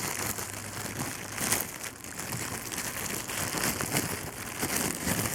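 Plastic food packaging crinkling and rustling as it is handled, with irregular small crackles.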